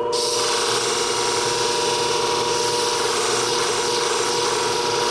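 Steel beauty-shear blade being ground against the spinning disc of a flat-hone shear-sharpening machine: a steady hiss over the machine's motor hum, starting as the blade goes onto the disc. More metal is being taken off the edge to grind out a remaining nick.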